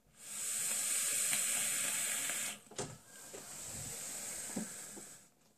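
A long draw on a box-mod vape. The fused-Clapton coil fires with a steady hiss for about two and a half seconds, then a long, softer exhale of the vapor cloud trails off.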